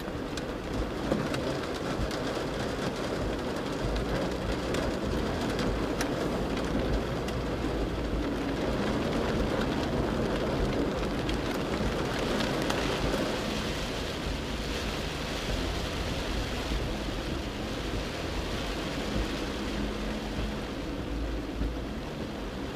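Heavy rain on a Mercedes-Benz G-Class (W461 G300) and its tyres running through flood water, heard from inside the cabin. Underneath is the steady low running of its OM642 V6 diesel, with a few small ticks of drops striking the body.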